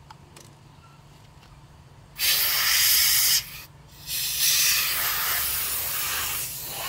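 A jet of air or spray hissing in two bursts: a loud one of about a second, starting about two seconds in, then a longer one of about two and a half seconds.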